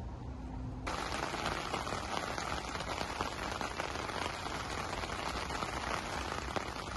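Steady rain pattering, heard from inside a fishing bivvy, starting suddenly about a second in.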